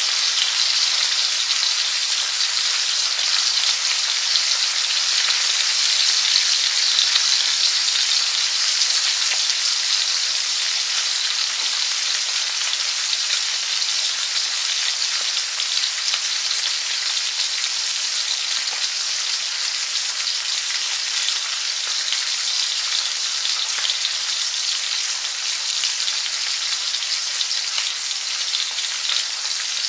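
Food frying: a steady, hissy sizzle that goes on without a break.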